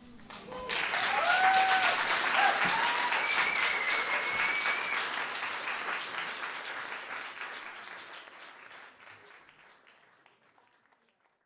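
Audience applauding with a few cheers, the clapping fading out over the last few seconds.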